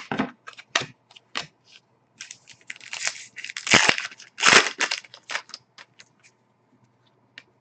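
Trading cards being handled and flipped through: a run of sharp clicks and short papery swipes as cards slide against each other, busiest and loudest in the middle.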